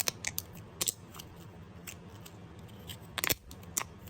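Fidget toys being handled: scattered sharp plastic clicks and rustles, with a louder double click a little past three seconds in.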